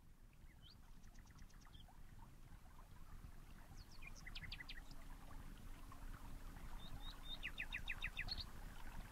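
Songbirds chirping in short phrases of quick, high notes, three phrases spaced a few seconds apart, over a faint low outdoor rumble that grows slowly louder.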